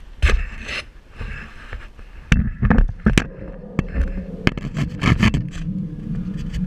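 Handling noise from an action camera being set down on a concrete ledge by a metal railing: a series of sharp, irregular knocks and scrapes, with a steady low hum coming in about two seconds in.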